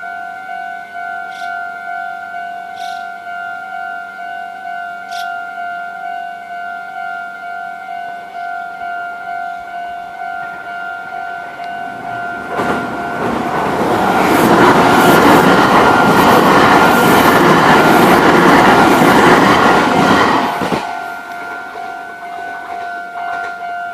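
Japanese level-crossing warning bell ringing in a steady, evenly pulsing two-tone ding. About halfway through, a Meitetsu express train (a 3100 series set coupled to a 3700 series set) passes over the crossing for about eight seconds, a loud rumble with wheels clacking over rail joints, and then fades while the bell keeps ringing.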